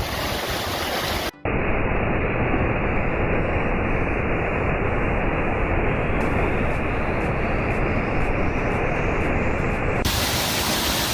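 Steady rushing of a waterfall. It drops out for a moment about a second in, then sounds duller until shortly before the end.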